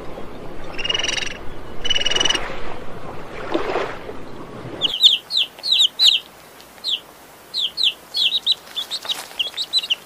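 Two short, squeaky calls from dolphins at the surface, about a second apart, over a rushing background noise. About five seconds in, this gives way to a crowd of young chicks peeping in quick, high, falling notes.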